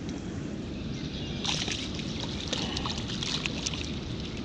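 Water sloshing and splashing in the shallows at the river's edge as a freshwater drum is released. About a second and a half in comes a run of crackling splashes lasting some two seconds.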